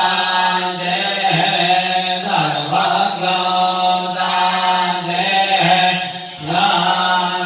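Voices chanting Hindu puja mantras in unison on a steady, held pitch. There is a short break for breath about two seconds in and a dip just before the end.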